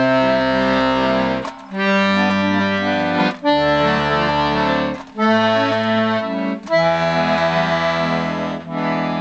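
Royal Standard 32-bass accordion playing chords on the treble side over low bass notes, in phrases of about one and a half to two seconds with brief breaks between them. Its tremolo reeds give a wavering tone, freshly rewaxed, and the instrument still needs a little tuning, by the player's account.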